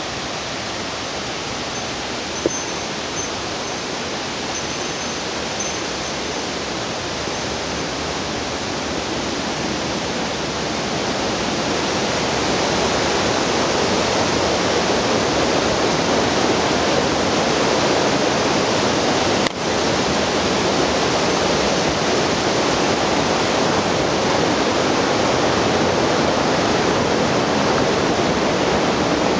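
A mountain stream rushing steadily over rocks, growing louder about a third of the way in and then holding level.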